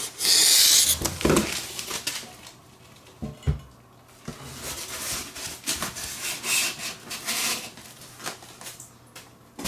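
Cardboard shipping box being slid and shoved aside, a loud rasping scrape in the first second, then a single soft thump and intermittent lighter scraping and rustling as things are handled.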